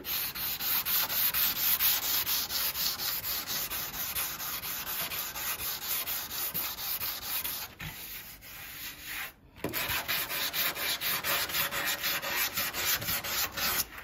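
Sanding block with 240-grit sandpaper rubbed back and forth over filler on a windsurf board's rail, a quick rhythmic scratching of several strokes a second. This is the first coarse cut, taking the filler back to leave it only in the pinholes. It eases off and stops briefly about two-thirds through, then starts again.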